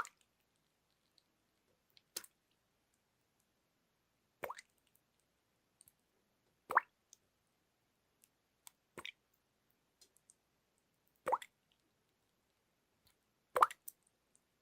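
Water dripping, single drops falling one at a time at an even pace, a louder drop about every two seconds with a few fainter drips in between.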